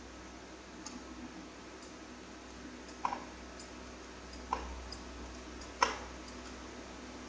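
Three sharp plastic clicks, a little over a second apart and the last the loudest, from a hand working the switches and sticks of a Radiolink AT9 RC transmitter, over a faint steady hum.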